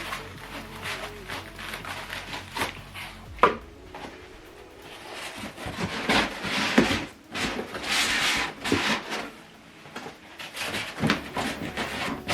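Cardboard and plastic packaging being handled: irregular knocks and clicks with stretches of rustling and sliding as the parts are lifted out of the box, busiest in the middle.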